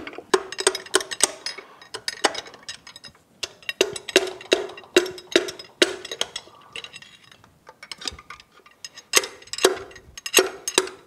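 Repeated sharp metallic clinks and knocks of a long steel socket extension striking the underside of the pistons to pop them out of the cylinder bores of a Yamaha F225 outboard block. Some strikes ring briefly. The knocks come in bursts, with a quieter gap a little past the middle and a quick run of them near the end.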